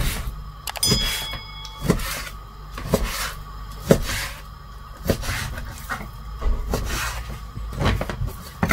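Chef's knife slicing raw chicken breast into strips on a plastic cutting board, the blade knocking on the board about once a second.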